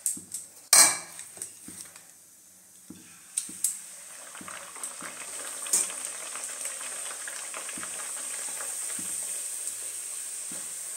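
Puri deep-frying in hot oil in a metal kadhai. There is a sharp metallic clank about a second in, then a steady sizzle that starts about four seconds in as a puri goes into the oil, with light taps of a slotted spoon.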